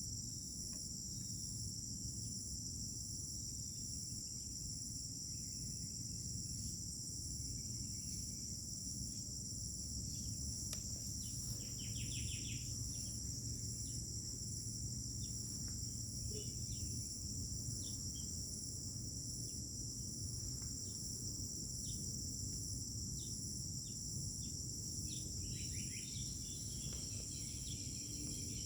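Crickets trilling in a continuous high-pitched chorus, with short bird chirps and calls scattered throughout, over a low background rumble.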